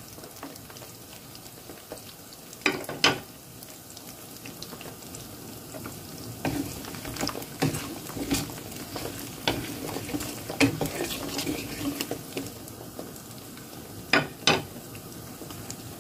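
Peeled garlic cloves and dried red chillies frying in hot mustard oil in a pan, a steady sizzle. A wooden spatula stirs through them, scraping and knocking on the pan several times, with two sharp knocks about three seconds in and two more near the end.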